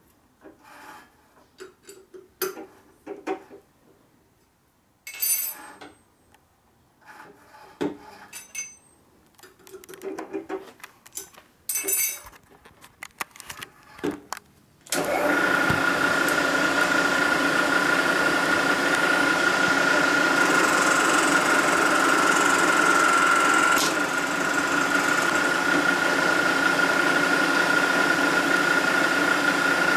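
Scattered light clicks and knocks as the work and cutter are handled. About halfway through a milling machine switches on and runs steadily with a high whine and cutting noise, machining light passes across the welded aluminium Harley panhead cylinder head.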